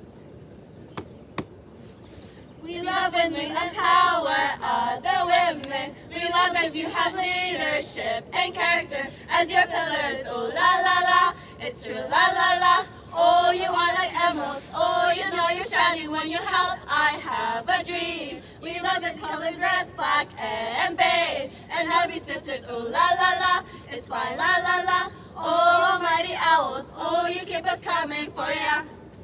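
Women's voices singing together, unaccompanied, in phrases with a wavering vibrato broken by short pauses. The singing begins about three seconds in.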